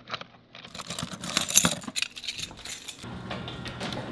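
A bunch of keys jangling and clinking as they are picked up out of a bowl. About three seconds in, an electric garage door opener starts with a steady low hum as the door rises.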